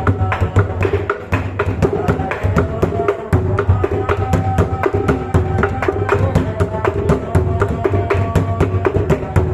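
Bedug, a large mosque drum, beaten in a fast, steady rhythm of about five or six strokes a second, with sharp clacking strikes and a few ringing pitched notes on top.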